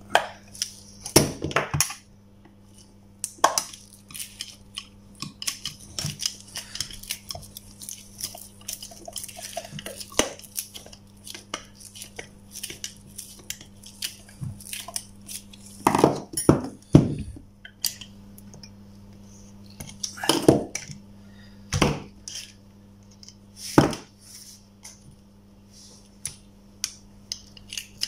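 Clicks, clinks and light scraping of a screwdriver driving the end-cap screws into a small 12 V DC motor housing, with louder knocks of metal parts and tools being handled every few seconds.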